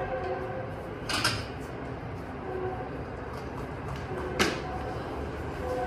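Two sharp knocks of a cricket ball being played, one about a second in and a crisper one about four seconds in, over a steady background drone with faint held tones.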